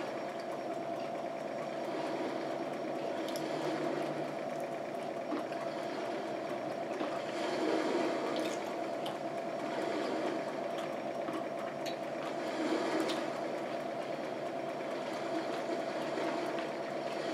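A steady droning hum with a constant tone, with a few faint sharp clicks, likely from a fork on the plate, and quiet chewing.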